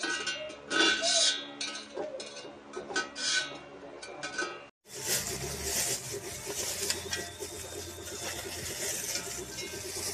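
Light metallic clinks and rings as a stainless steel chopper blade knocks against a stainless steel bowl. After a short break, packaging is handled and rustled over a steady low hum.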